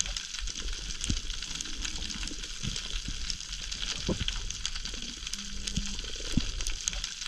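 Steady crackling of snapping shrimp on a coral reef, heard underwater: a dense field of fine clicks and hiss, with occasional low thumps.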